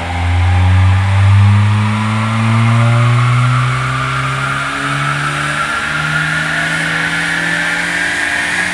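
Toyota Corolla E90 engine pulling up through the revs under load on a chassis dyno, its exhaust note climbing slowly and steadily in pitch, with a higher whine rising alongside it. Loudest in the first few seconds.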